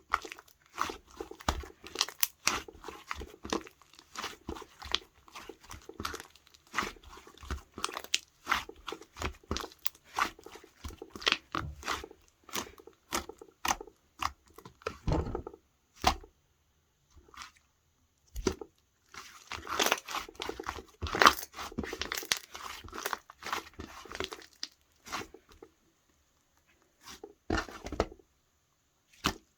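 Slime being squeezed, poked and stretched by hand, giving rapid crackling clicks and small pops. The clicking is dense for the first half, pauses, starts again in a thick patch about two-thirds through, then thins to a few single clicks.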